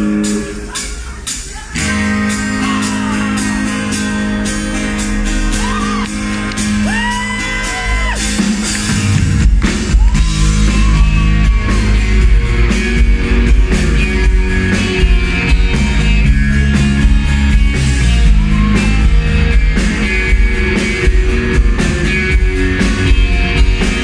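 Live rock band starting a song. Sustained chords come in about two seconds in, a man's singing voice glides over them, and about nine seconds in the drums and bass come in heavily and the music gets louder.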